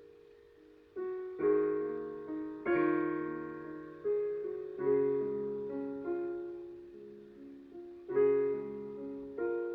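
Solo piano playing slow chords, each struck and left to ring and fade before the next; it is nearly quiet for about the first second, then chords come every second or so.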